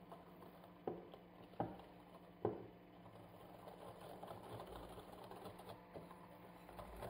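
Metal wire whisk beating a thin custard mixture in a glass bowl: three sharp clinks of the whisk against the bowl in the first few seconds, then faint steady whisking.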